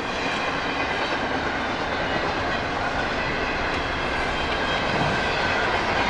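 CSX intermodal freight train's cars passing at speed: a steady rumble of steel wheels on rail with faint clickety-clack, and a thin high ringing held over it.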